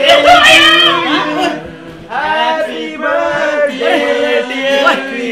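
Several male voices singing together loudly, with a steady low hum underneath.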